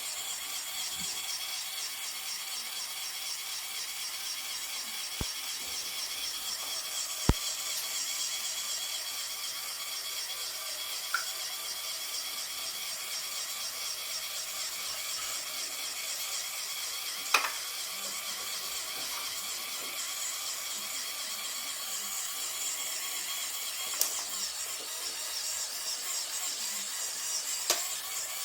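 Small electric motor of the Lego Technic model whirring steadily through its plastic gearing, with a few sharp clicks scattered through, the loudest about seven seconds in.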